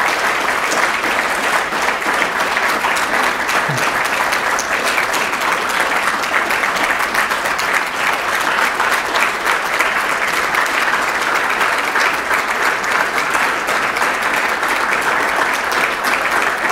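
Audience applauding: a long, steady round of clapping from many people.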